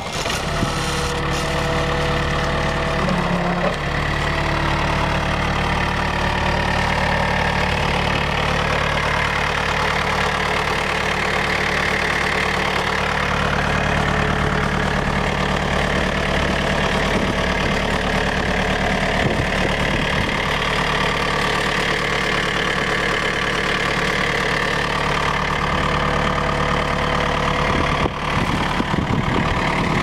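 1986 John Deere 675 skid steer's engine starting up, then running at a steady idle.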